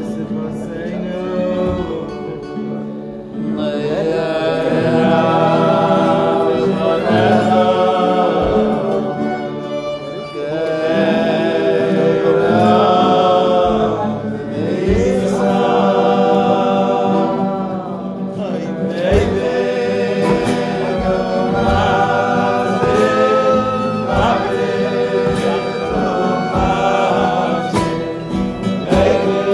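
A group of voices singing a slow melody together, kumzitz style, with instrumental accompaniment underneath.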